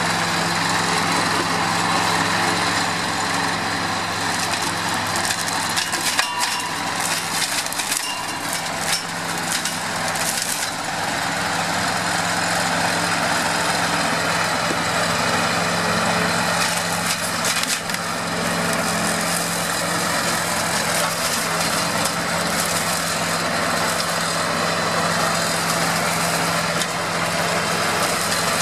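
New Holland 8360 tractor's diesel engine running steadily at working revs, driving a hedge-cutter flail head with a constant whirring hiss. Sharp crackles come in bursts about six to eleven seconds in and again around seventeen seconds, as twigs are chopped by the flail.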